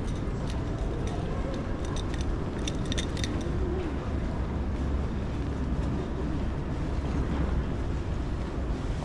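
City street ambience: a steady low rumble of road traffic, with a short run of light clicks about three seconds in.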